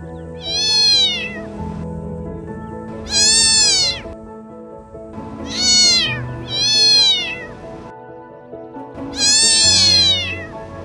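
Domestic cat meowing five times, each meow rising and then falling in pitch, over background music.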